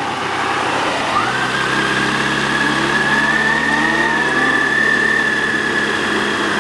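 Yamaha FJR1300 sport-touring motorcycle's inline-four engine running at road speed, heard from on the bike with wind rush. About a second in the engine note steps up as the bike pulls harder, then holds steady with a thin high whine over it.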